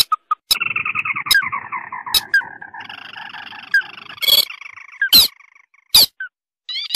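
Animal calls: a dense chorus of overlapping chirps starting about half a second in and fading out after about four seconds, then two loud single calls near the end.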